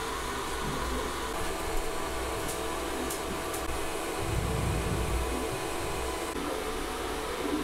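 Creality CR-5 Pro H 3D printer running a print: a steady whir of its cooling fans, with the stepper motors all but silent.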